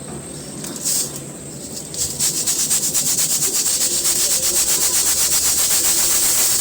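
Dry, chalky cones being crumbled and rubbed by hand: a few short gritty swishes, then from about two seconds in a fast, even run of scraping rubs that goes on steadily.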